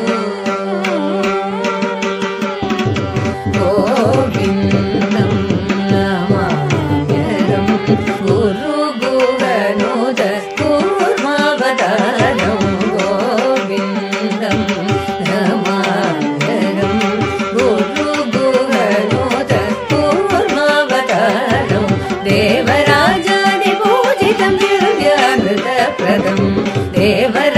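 Carnatic classical music: female voices singing with violin and mridangam, over a steady drone. The melody slides and ornaments its notes, and the mridangam strokes come in about two and a half seconds in.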